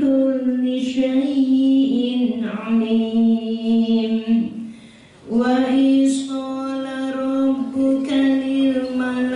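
A woman chanting Quran recitation in Arabic, drawing out long, melodic held notes. She pauses briefly for breath about five seconds in, then begins the next phrase.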